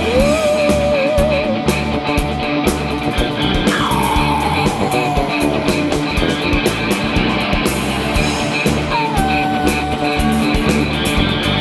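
Live rock band playing: drum kit, bass and electric guitars, with a lead line that slides down in pitch twice and holds the lower note.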